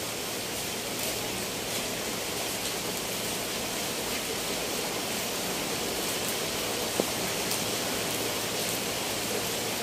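Steady rain falling on leaves and a corrugated roof, an even hiss, with one sharp tap about seven seconds in.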